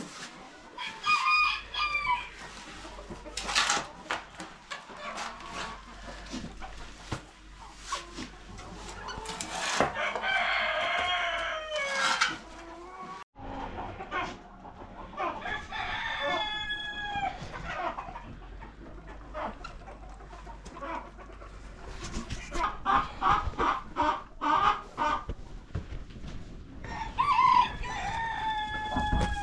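Chickens clucking while a rooster crows a few times, with long falling calls, among scattered knocks and clicks.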